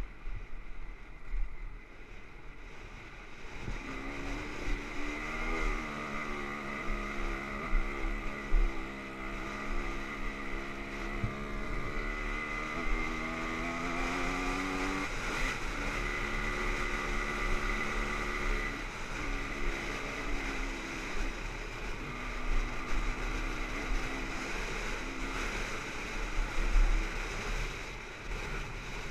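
Dirt bike engine under way on a rough trail, its note rising and falling with the throttle and breaking off briefly several times as the rider shuts off and shifts, with one long climb in pitch around the middle. Wind rushes over the helmet-camera microphone throughout, with low thumps from the bumps.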